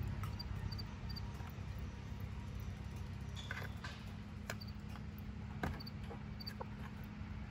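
A few sharp clicks from a silkie chicken's claws and beak on the wire top of a dog crate as it steps about and pecks, over a steady low outdoor rumble. Faint high chirps come in pairs now and then.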